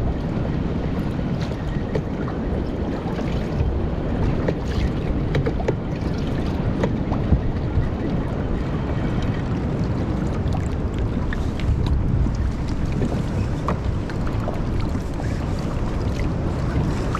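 Wind buffeting the microphone over a choppy sea, with water slapping against a small boat's hull and scattered small splashes and knocks.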